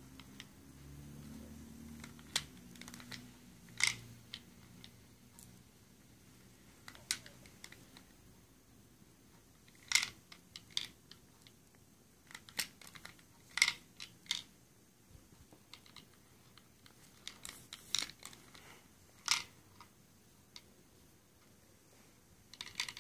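Hand-built Lego candy dispenser being cycled by hand: sharp plastic clicks and clacks as its Lego lever is pulled back and pushed in, coming irregularly every second or few, some in quick pairs, as it dispenses Skittles one at a time.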